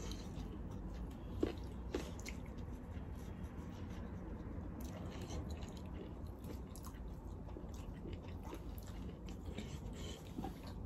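Faint chewing and eating by hand, with scattered small mouth clicks over a low steady hum.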